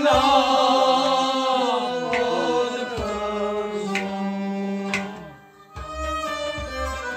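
Sufi kalam: a singing voice over a harmonium's held chords, with sharp hand-drum strokes a few times and deep drum strokes near the end.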